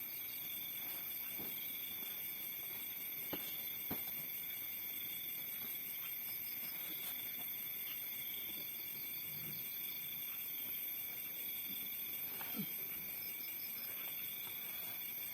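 Steady chorus of insects such as crickets, trilling at several high, unchanging pitches, with a few soft clicks and a brief low sound about twelve seconds in.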